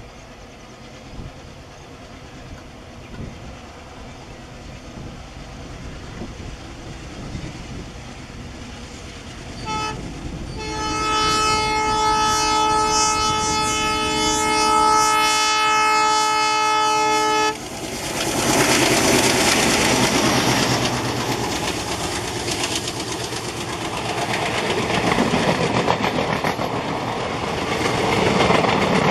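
Two WDG 3A ALCO diesel locomotives approaching, their engines growing louder. About ten seconds in comes a short horn toot, then a long multi-tone horn blast of about seven seconds that cuts off sharply. The locomotives and coaches then pass close by with loud rolling rail noise.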